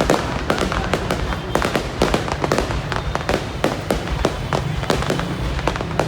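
Fireworks display going off in a rapid, continuous barrage: many sharp bangs and cracks a second over a constant low rumble.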